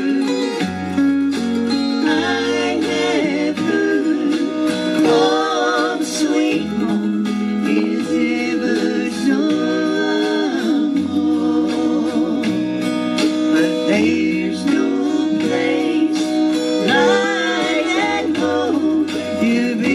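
Gospel music: a singing voice with acoustic guitar over a bass line.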